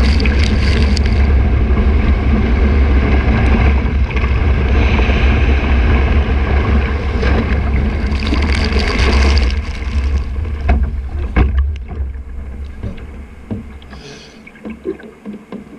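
Kayak sliding broadside on a breaking wave: a loud rush of whitewater with heavy wind buffeting on the bow-mounted microphone. After about ten seconds it fades into separate splashes and water gurgling around the hull.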